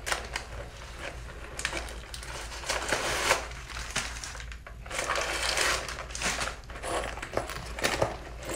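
Crumpled tissue paper rustling and crinkling in several bursts as it is handled inside a handbag.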